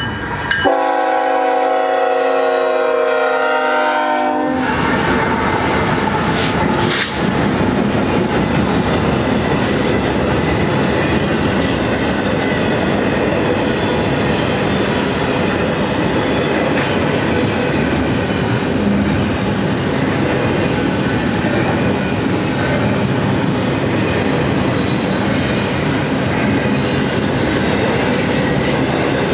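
A freight locomotive's multi-chime air horn sounds one long blast of about four seconds. It is followed by the steady, loud rolling of a passing double-stack intermodal freight train: steel wheels on rail with clicking over the rail joints.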